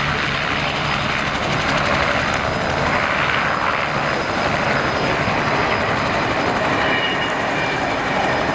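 Bell 47 G-3B-1 Soloy helicopter lifting off and hovering low: its Allison 250 turboshaft engine and two-blade main rotor run steadily, with a thin high whine held throughout.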